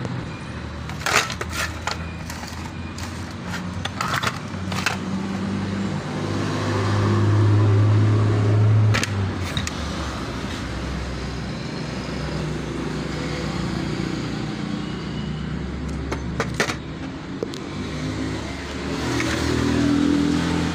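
Scattered sharp metal clicks and clinks as a scooter starter motor is pulled apart with pliers and its housing handled, over a steady low rumble that swells for a couple of seconds near the middle.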